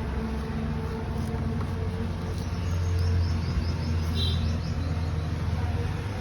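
A steady low hum, with a bird chirping a quick run of short high notes in the middle.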